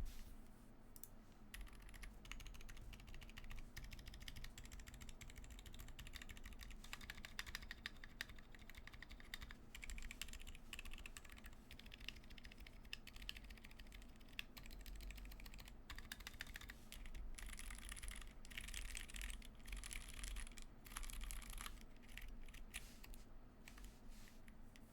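Typing on a Cannon Keys Bakeneko60 mechanical keyboard with Zeal Zilents silent tactile switches lubed with Tribosys 3204, on an FR4 plate with PBT keycaps and no foam: a quiet, continuous run of keystroke clicks that gets busier about two thirds of the way through.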